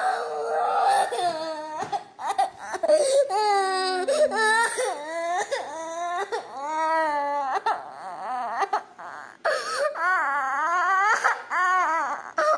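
A child crying hard in long, high, wavering wails, with short catches for breath in between.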